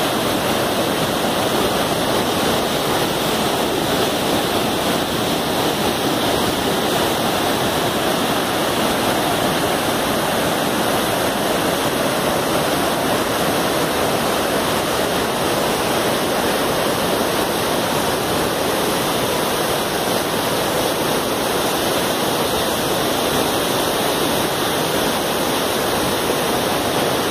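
Whitewater river rapids rushing over and between boulders: a loud, steady, unbroken rush of water.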